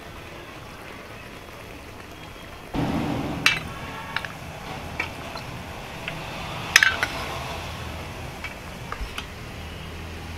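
Steel ladle clinking against the pressure cooker pot as boiled goat trotters in their broth are scooped out, with liquid sloshing. A handful of sharp metal clinks with a short ring, the loudest about seven seconds in.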